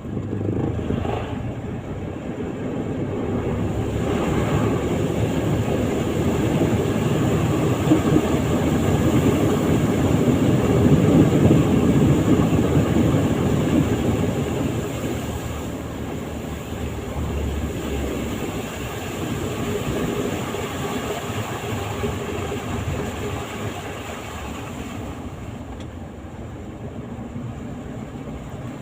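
Vehicle noise, a steady rumble that swells to its loudest about eleven seconds in and then eases off.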